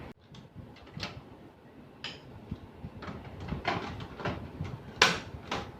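Plastic knocks and clicks of a toner cartridge being fitted into a Canon LBP6000 laser printer and its cover handled: several separate knocks about a second apart, the loudest about five seconds in.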